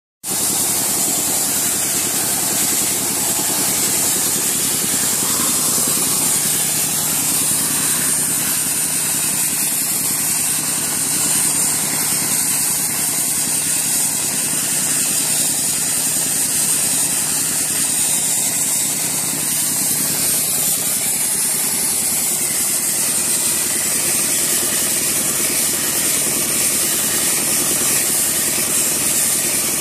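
Wet sandblasting rig at work: the engine of the air compressor runs steadily under the loud, continuous hiss of the water-and-sand jet from the blast nozzle.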